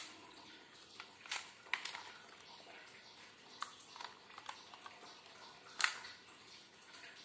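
Light clicks and clacks from a pistol being handled, a few at a time, with the loudest click as the magazine comes out of the grip near the end.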